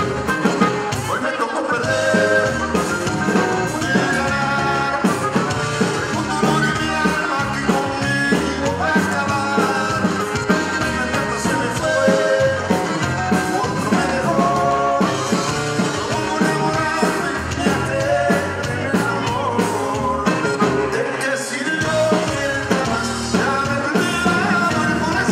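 Norteño band playing live: button accordion, guitars, electric bass, drums and congas.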